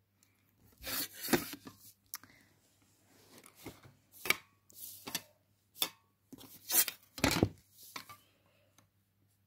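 Plastic set squares being slid and shifted across drawing paper, giving a string of irregular scraping and rubbing sounds with a few sharp taps as the rulers knock together.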